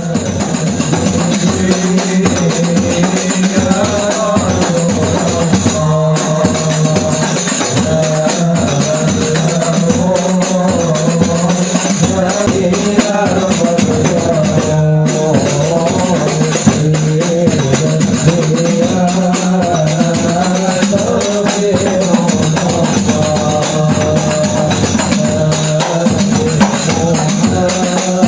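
Background music: a sung melody over a steady tambourine and drum rhythm, fading in at the start.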